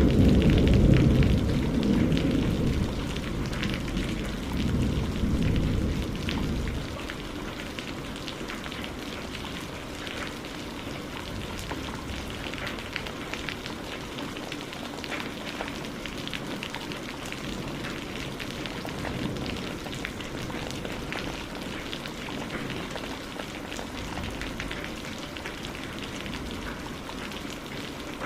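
Steady rain falling, with many small drop impacts. A low rumble of thunder, loudest about a second in, fades away over the first several seconds.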